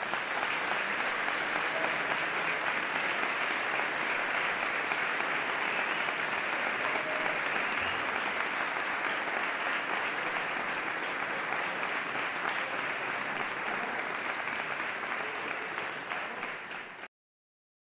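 Audience applause from a packed hall, a steady dense clapping that stops abruptly near the end.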